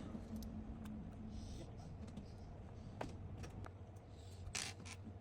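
Faint, scattered light clicks and taps over a low steady hum, with a short hiss about four and a half seconds in.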